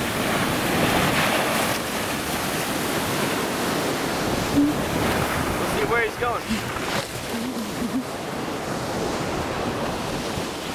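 Ocean surf washing steadily on the beach, with wind on the microphone.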